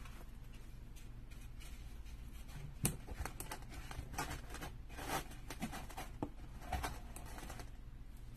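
Hands arranging a burlap pumpkin and artificial fall leaves inside a glass lantern: faint rustling and small knocks, with one sharp tap about three seconds in, over a low steady hum.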